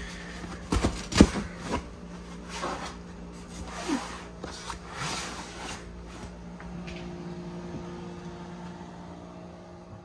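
Knocks and rubbing as a hand pats and pushes on the upholstered backrest of an RV jackknife sofa, with the sharpest knock about a second in, over a steady low hum.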